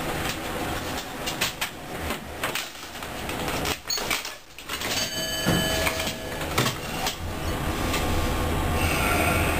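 Light-rail tram standing at a signal, its onboard equipment running with a steady hum and scattered clicks and knocks. A brief steady tone sounds about five seconds in, and the low hum grows louder near the end.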